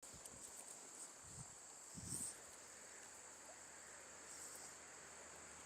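Near silence: a faint, steady high-pitched drone of insects, with a couple of soft low thumps about one and a half and two seconds in.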